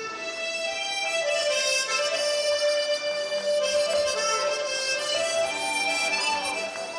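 Music for a Tatar folk dance starting up: a melody of held notes, rising in level at the outset.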